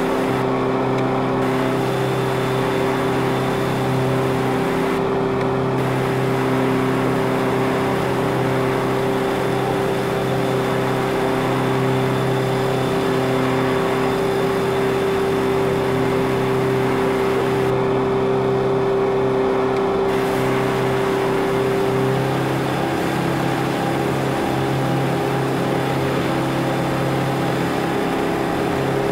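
A boat's engine running steadily: a constant drone whose pitch shifts slightly about 22 seconds in.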